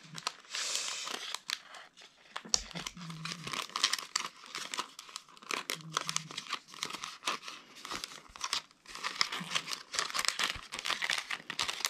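Clear plastic packaging and paper crinkling and rustling as they are handled and pulled open: a dense, irregular run of crackles.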